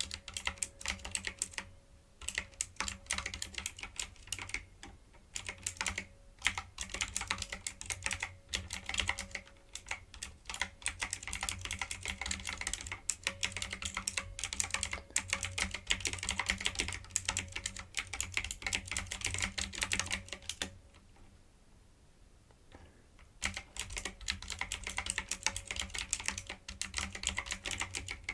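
Typing on a typewriter-style keyboard: a rapid, continuous run of key clicks, with a pause of about two seconds roughly three-quarters of the way through before the typing resumes.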